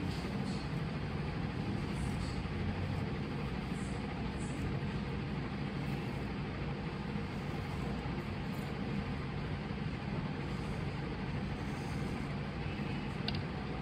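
Steady low rumbling noise with no rise or fall, and a couple of faint high ticks near the end.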